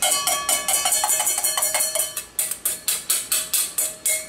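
Metal spoon clinking rapidly against metal over a cast iron wok, a quick, even run of sharp clinks with a ringing tone under them.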